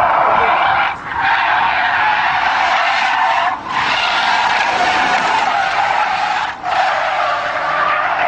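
Car tyres screeching continuously as a car slides sideways at speed in a drift, the squeal breaking off briefly three times.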